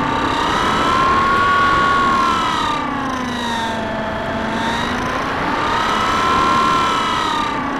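Bixler 2 RC plane's brushless electric motor and pusher propeller whining, the pitch rising and falling slowly twice as the motor speeds up and slows, over a steady rush of wind noise.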